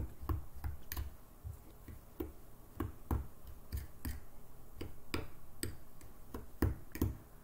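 A metal spoon stirring oil-coated craft sand in a small clear bowl, clinking against the bowl in irregular taps about two a second.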